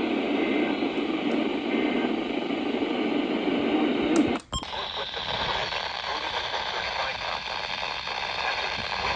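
Radio receiver playing a noisy, hissing off-air signal. About halfway through, the sound drops out for a moment, then comes back as a thinner, higher hiss.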